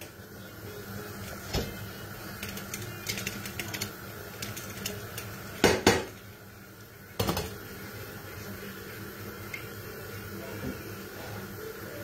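Kitchen clatter from a metal sieve being shaken and tapped over a large bowl of crumbs, with scattered light clicks and two louder knocks around the middle. A steady faint hum runs underneath.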